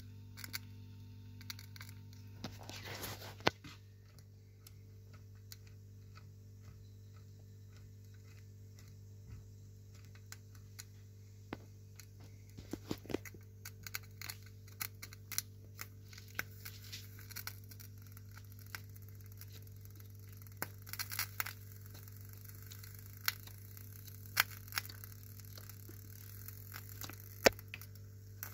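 Steady low electrical-type hum with scattered light clicks and taps of handling, a few sharper knocks standing out now and then.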